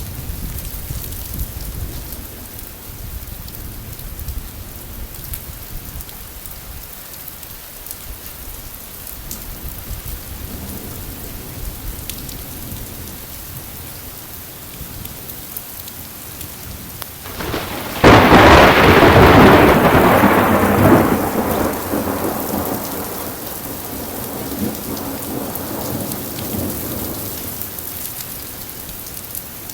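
Steady rain falling, with a sudden loud crack of thunder about two-thirds of the way in that rolls and rumbles away over several seconds.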